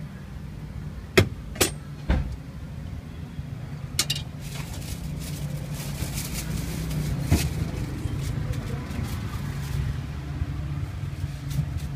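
Steady low rumble of street traffic, with a few sharp clicks and knocks, the loudest in the first two seconds.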